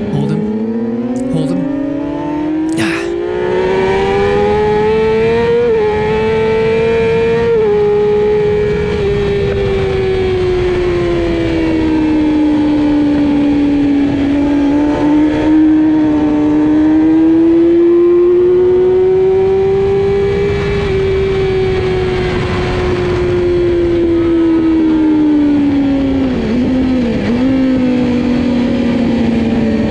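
Racing sportbike engine at high revs, heard from on board over wind rush, its note rising and falling as the rider accelerates out of and brakes into corners, with quick pitch steps at gear changes and a brief wobbling drop near the end.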